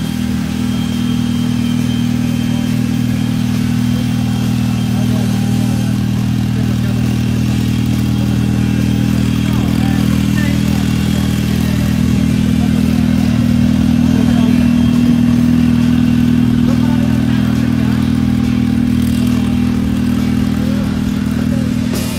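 Formula 4 race car's engine idling steadily at close range, at a constant pitch with no revving.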